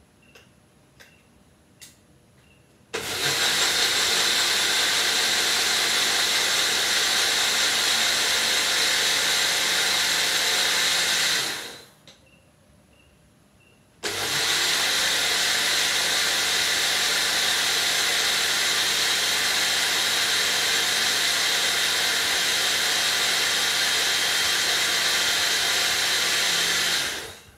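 Small personal blender running in two rounds: about eight seconds, a two-second pause, then about thirteen seconds, each starting suddenly and winding down when switched off. It is blending a liquid protein shake of powder, water and soy milk.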